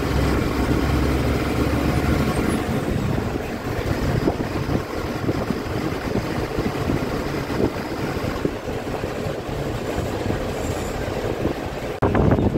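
BharatBenz diesel bus running on the road, heard from inside the front cabin: a steady low engine drone, then road rumble with frequent jolts and rattles over the uneven surface. The sound breaks off abruptly near the end.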